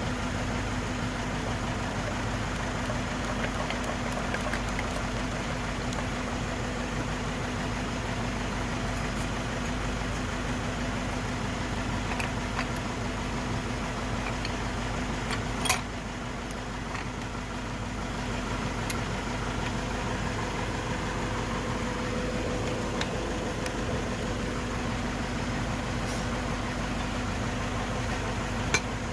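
Steady mechanical hum with a couple of sharp clicks, one about halfway through and one near the end.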